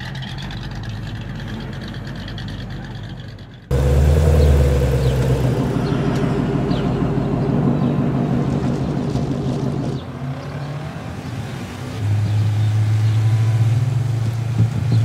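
Full-size car engine sound effects dubbed over the toy cars: an engine running and revving in separate clips that switch abruptly about four seconds in, again about ten seconds in, and again near twelve seconds.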